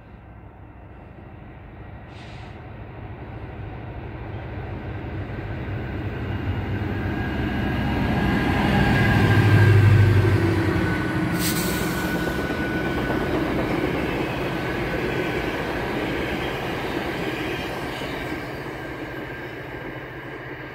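GO Transit MP40 diesel locomotive 661 and its train passing at about 72 km/h: the rumble builds as it approaches, is loudest with the engine's low drone as the locomotive goes by about ten seconds in, then the cars' wheels run on steadily and fade near the end.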